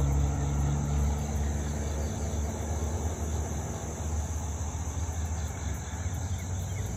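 Outdoor morning ambience: insects, most likely crickets, make a steady high-pitched drone over a low, steady rumble.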